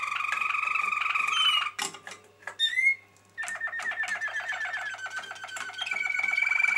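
Caged domestic canaries singing fast rolling trills. About two seconds in the trilling breaks off into a short pause with a few chips and quick rising whistles, then a new fast pulsing trill starts and a higher, steadier trill joins it near the end.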